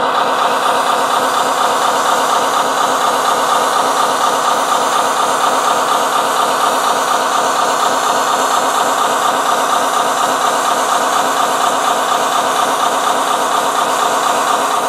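Sound module of a Tamiya Scania R620 6x6 RC tipper truck playing a steady diesel engine idle through its small speaker.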